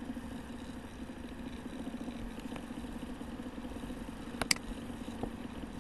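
Steady low background hum, with two quick mouse clicks close together about four and a half seconds in.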